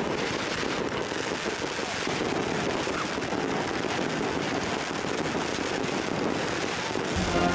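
Fireworks crackling and popping in a dense, steady stream of small bursts.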